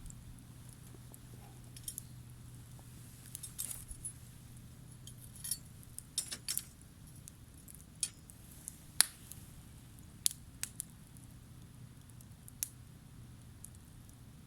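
Campfire of firewood crackling: sharp, irregular pops and snaps, the loudest about nine seconds in, over a steady low background hum.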